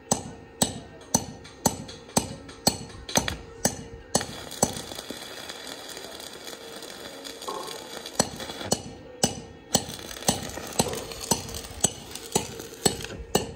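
Hammer striking metal about twice a second, each blow ringing. The blows stop for about four seconds in the middle while a steady hiss carries on, then start again.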